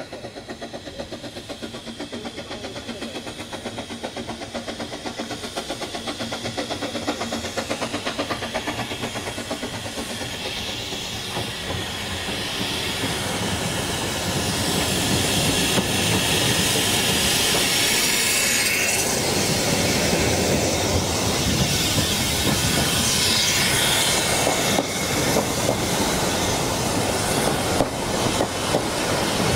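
Narrow-gauge steam locomotive hauling a train of coaches, approaching and passing close beneath: a fast even rhythm of exhaust beats grows steadily louder, then a hiss of steam. Near the end, the coaches' wheels click and clatter over the rail joints.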